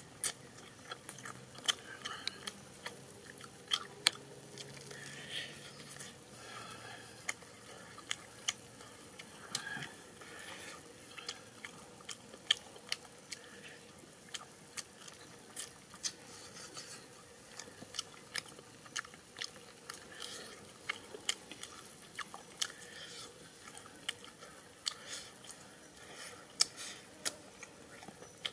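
A person chewing mouthfuls of grilled tire track eel, close to the microphone, with many sharp crunches and mouth clicks at irregular intervals.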